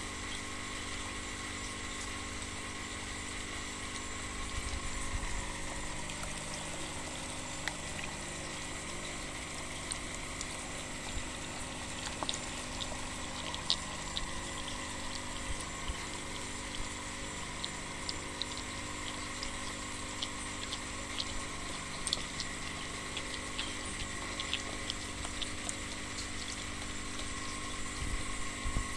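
Steady hum of an electric pump running, with water bubbling and small splashes from koi crowded in a basin.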